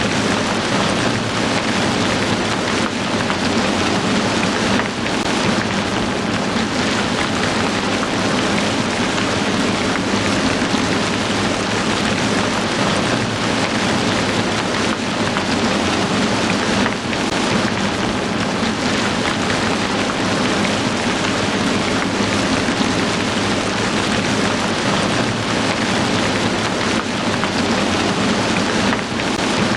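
Heavy rain falling steadily: a dense, even hiss of countless drops with no break or change.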